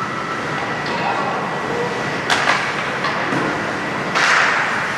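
Ice hockey play on a rink: a steady rumble of skates on the ice with faint voices, two sharp knocks of stick or puck about two and a half seconds in, and a louder skate scrape about four seconds in.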